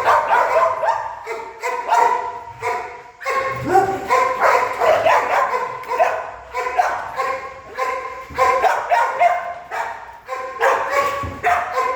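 Dogs barking over and over, the barks overlapping with higher yips, with only brief pauses.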